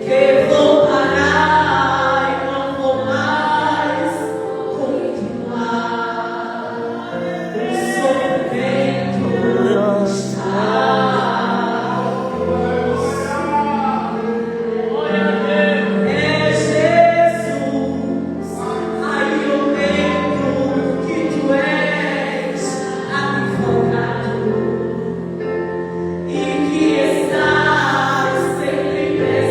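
Christian gospel music with a choir singing over sustained accompaniment, the voices in Portuguese.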